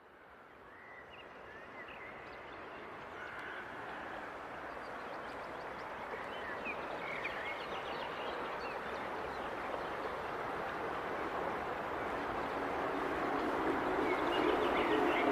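Nature ambience fading in: small birds chirping over a steady rushing noise. Near the end a sustained chord of low notes comes in as music begins.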